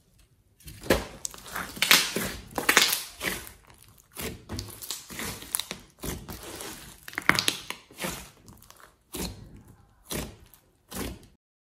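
Glossy slime mixed with clay being stretched, folded and pressed by hand, giving irregular sticky squelches and crackles as air pockets are squeezed through it. The sounds come in dense clusters at first and thin to a few short separate pops near the end, then stop.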